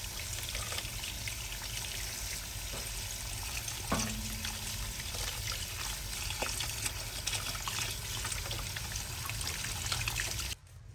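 Tap water running steadily over small raw octopuses in a basin as they are rinsed and rubbed by hand, with a single knock about four seconds in. The water sound stops abruptly near the end.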